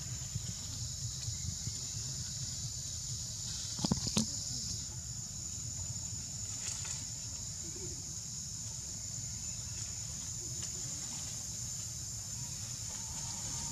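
Steady high insect buzz with a low rumble underneath, and two sharp clicks close together about four seconds in.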